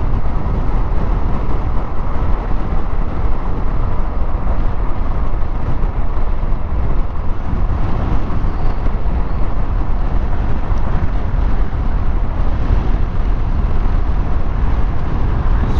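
Yamaha NMAX scooter riding at speed on a highway: a loud, steady rush of wind and road noise that does not let up.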